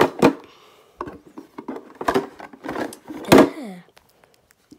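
A child's voice making short untranscribed vocal sounds and quiet words in a small room, the last one sliding down in pitch about three and a half seconds in, with a few light knocks of handling.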